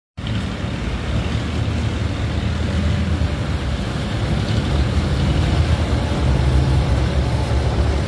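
Speedboat outboard engines running steadily under way, a low drone over a hiss of rushing water and wind.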